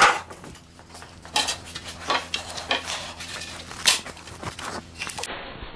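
A large square wooden frame being picked up and lifted by hand: a run of separate wooden knocks and clicks, the loudest a little before four seconds in.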